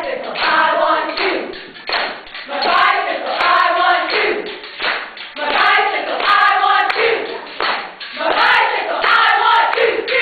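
A group of women chanting in unison in short rhythmic phrases, with some hand claps.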